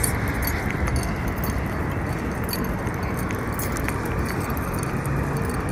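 Wind rumbling on a handheld phone's microphone over outdoor street noise, with a few faint light clicks.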